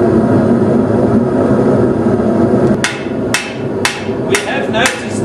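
Gas forge burner running with a steady roar, then a hand hammer striking a hot steel knife blade on an anvil, sharp blows about two a second starting near the middle.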